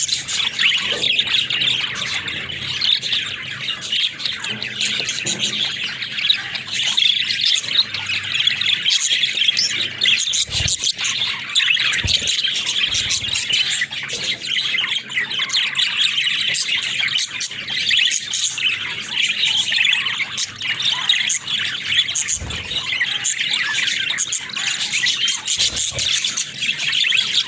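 Budgerigars chattering and warbling without a break, a dense mix of quick chirps and calls.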